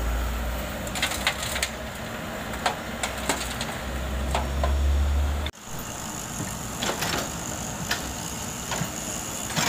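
Komatsu excavator's diesel engine running with a low rumble while a bucketful of soil and stones drops into a dump truck's steel tipper bed, with a scatter of sharp knocks as clumps hit the bed. Just past halfway the sound changes abruptly to the excavator's engine heard further off, with a steady high-pitched whine and a few more knocks.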